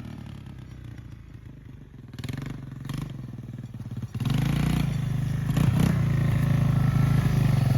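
Engine of a 1986 Yamaha YTM225 three-wheeler, a single-cylinder four-stroke, running: fairly quiet at first, then louder about four seconds in and holding a steady note.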